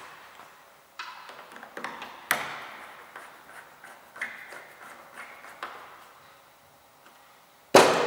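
Light clicks and ticks from a cross-head screwdriver driving the door handle's retaining screw back into the edge of a car's rear door. One sharper click comes a couple of seconds in, and a loud knock near the end.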